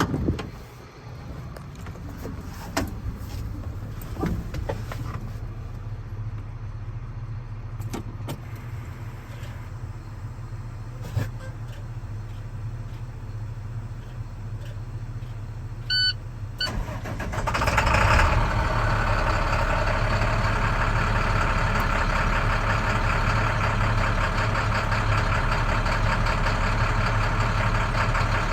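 Scattered clicks and knocks over a low steady hum, then a few short beeps. About seventeen seconds in, a 2013 International 4300's MaxxForce DT diesel cranks briefly and catches on a cold start, then runs at a steady idle.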